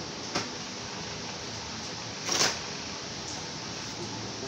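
Paper takeout bag and plastic wrapping rustling as food is unpacked, with a short crinkle about half a second in and a louder brief crackle about halfway through, over a steady hiss.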